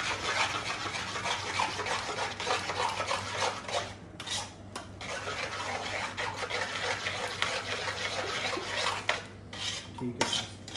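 A spice marinade being stirred in a steel cooking pot, with continuous scraping and clinking against the pot, pausing briefly about four seconds in and again near the end.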